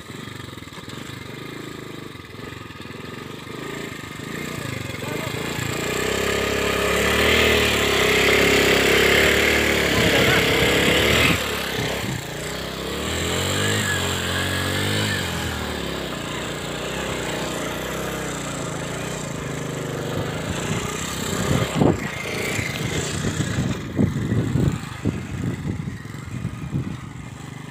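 Small motorcycle engine revving hard as the bike labours through soft sand. It grows louder to a peak about a quarter of the way in, then the revs rise and fall and settle. Sharp knocks and thumps come near the end.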